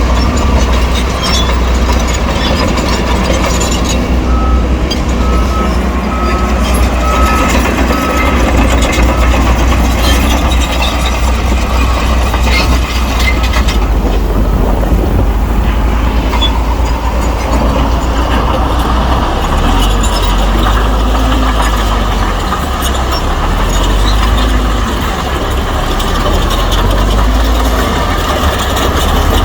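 Heavy diesel earthmoving machinery working: a bulldozer and dump truck engines running under load with scattered clanks and knocks. About four seconds in, a short run of evenly spaced single-pitch beeps, like a reversing alarm.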